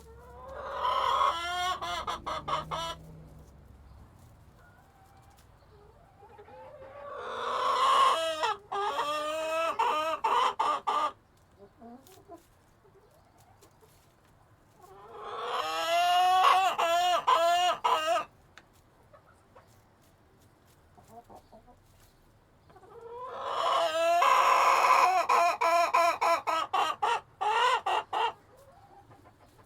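Chickens calling in four loud bouts a few seconds apart. Each bout swells into pitched calls and breaks up into quick, choppy clucks.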